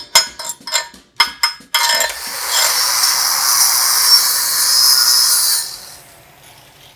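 A chipping hammer striking slag off a steel weld, about seven quick ringing strikes. Then a wire wheel on an angle grinder scrubs the weld bead clean for about four seconds before fading out near the end.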